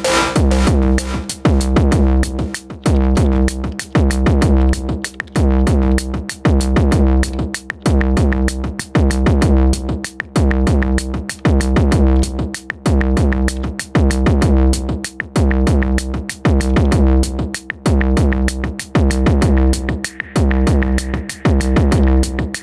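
Elektron Digitone FM synthesizer playing a looping electronic drum pattern: a heavy, sustained low bass under fast ticking percussion. A steady high tone joins the loop near the end.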